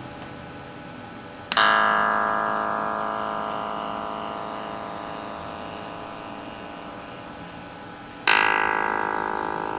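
Homemade Zen Generator electronic tone generator playing its randomised pattern: two synthesized notes with many overtones. Each starts suddenly and dies away slowly over several seconds, the first about a second and a half in and the second near the end.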